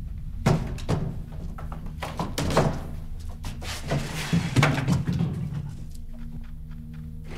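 Background music with a low, sustained drone, over a series of dull thuds and knocks in the first five seconds.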